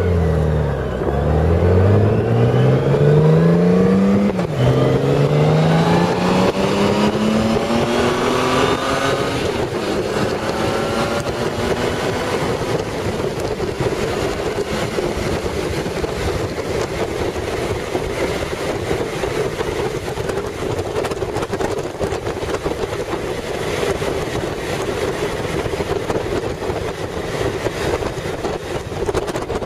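Honda Gold Wing motorcycle heard from the seat, pulling away and accelerating through the gears: the engine note climbs, drops at upshifts about one second and about four seconds in, climbs again, then settles into a steady cruise with wind rushing past.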